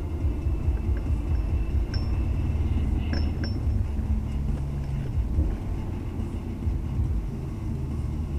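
Honda S2000 (AP2) engine and road noise heard from inside the cabin as the car drives slowly, a steady low rumble. A few light clinks come about two and three seconds in.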